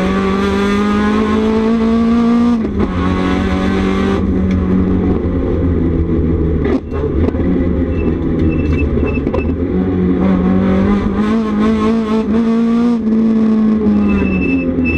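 The turbocharged SR20DET four-cylinder of a Nissan 300ZX race car heard from inside the cockpit while lapping hard. The revs climb, then fall sharply at gear changes about two and a half seconds in and again about four seconds in, and climb again later with another shift near the end. Short, high electronic beeps come in groups around the middle and near the end.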